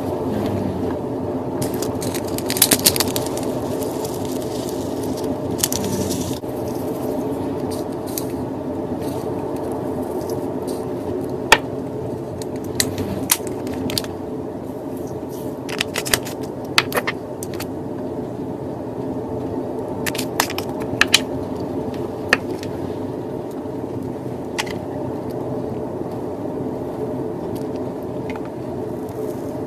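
Slime being handled, with scattered sharp crackles and pops, over a steady low hum.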